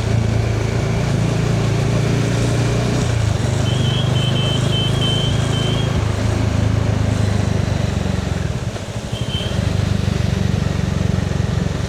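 Bajaj Dominar 400's single-cylinder engine running steadily under way, easing off briefly about three-quarters of the way through and then picking up again. A short run of high beeps sounds twice over it.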